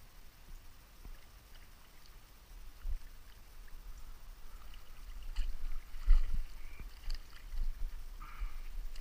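Water sloshing and splashing in irregular bursts, picking up about halfway through, over a low rumble.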